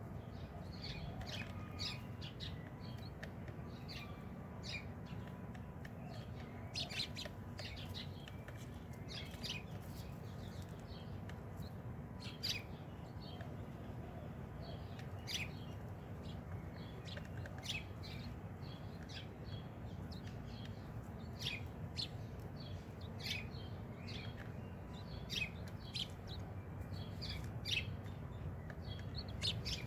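Small birds chirping in short, sharp notes, scattered irregularly about once a second or two, over a steady low background hum.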